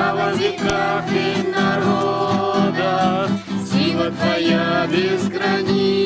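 A group of voices singing a song together, accompanied by an acoustic guitar.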